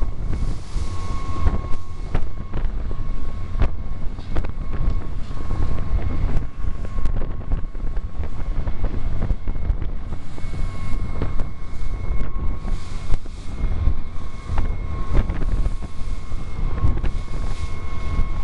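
Heavy wind buffeting on the microphone aboard a fast-running boat, over the steady whine of its engine. The hull gives many short knocks and thumps as it runs over the chop.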